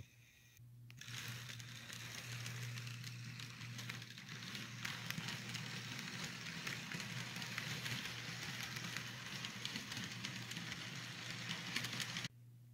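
Model passenger train's wheels rolling along the track, a steady crackling rush over a low hum. It starts about a second in and cuts off just before the end.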